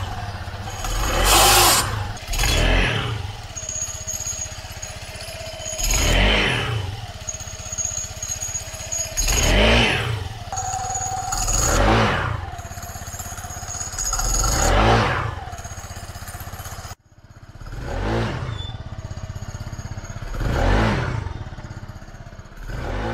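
Scooter engine revved in repeated throttle blips every two to three seconds, each swelling up and dying back over a steady running drone. It has an aftermarket REVENO 1.5 centrifugal clutch that, the owner says, sticks half-engaged and makes a very loud noise on take-off.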